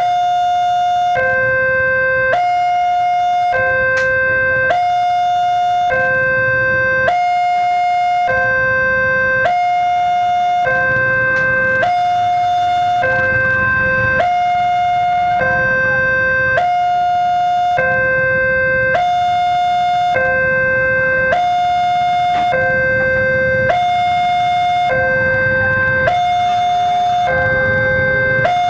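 Railway level-crossing warning alarm: an electronic two-tone signal alternating a higher and a lower tone, each held about a second, sounding continuously while the barrier is down for an approaching train. Low noise of waiting road traffic sits underneath.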